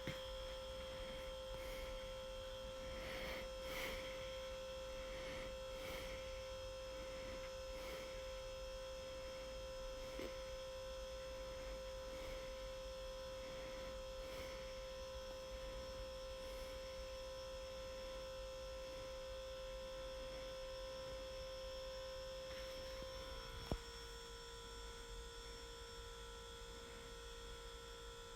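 Hunter Original ceiling fan coasting to a stop after being switched off: faint, soft blade swishes that come further and further apart as it slows, over a steady high hum. A single click about 24 seconds in, after which the hum drops slightly in pitch.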